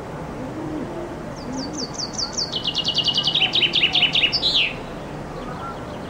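Common chaffinch singing one full song: a run of quick notes, falling in steps and speeding up, that ends in a short flourish. It starts about a second and a half in and lasts about three seconds.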